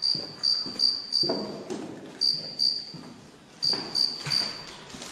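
A cricket chirping in a high-pitched, even rhythm, about three chirps a second in short runs of three to five with brief pauses between them. A few low thuds sound among the chirps.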